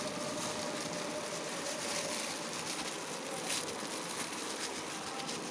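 Thin clear plastic bag rustling and crinkling as it is pulled down over a head and gathered closed at the neck, over a steady hiss.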